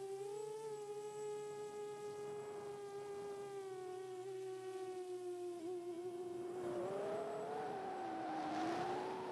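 Motors and propellers of a 7-inch FPV quadcopter humming steadily, the pitch drifting gently with the throttle. About six and a half seconds in, a rush of air joins the hum, which wobbles up and down as the quad dives.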